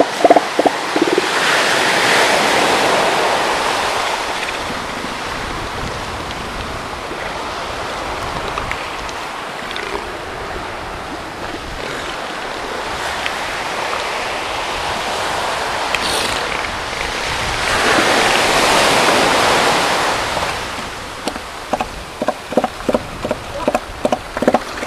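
Surf washing on the beach, swelling twice. In the first second and again for the last few seconds, a male northern elephant seal gives its pulsed, rhythmic threat call, about four pulses a second, the bull's warning to a rival.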